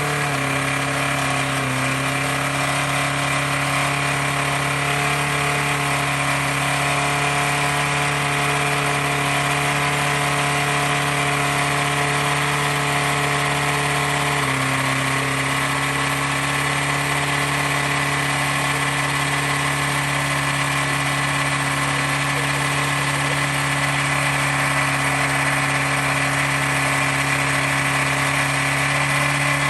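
A first-generation Toyota's engine idling steadily with a knock from the bottom end, which the owner takes for rod knock. The idle speed shifts slightly about halfway through.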